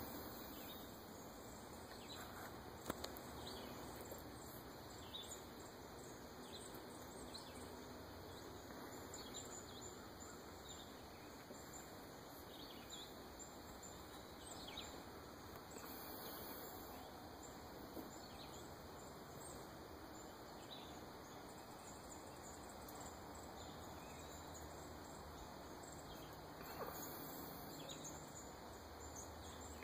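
Quiet outdoor morning ambience with scattered faint bird chirps and a couple of brief soft knocks.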